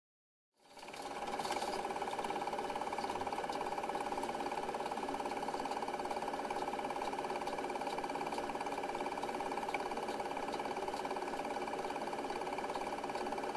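Film projector running, a steady mechanical whirr with a fast, even rattle, starting about half a second in.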